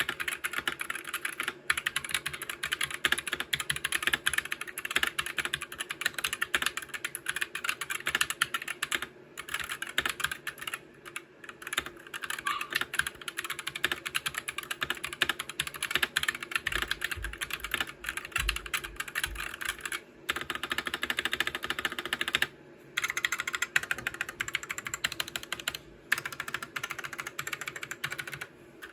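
Typing on a Gamakay 65% mechanical keyboard: a fast, dense run of key clicks with several short pauses.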